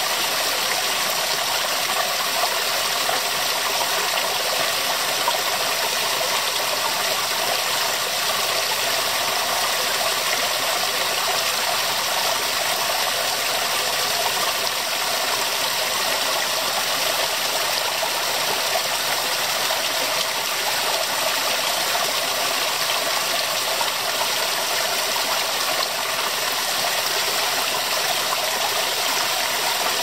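Small waterfall splashing steadily into a shallow pool: an even rush of falling water.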